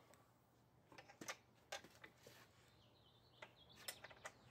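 Near silence with a few faint, scattered clicks and knocks of a bench vise being handled and its screw handle turned, and a couple of faint chirps in the second half.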